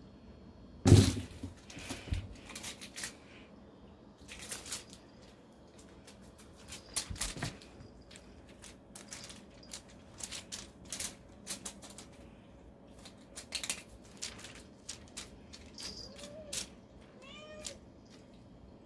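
A pet cat at play: a run of sharp clicks and knocks, the loudest about a second in, then two short meows near the end.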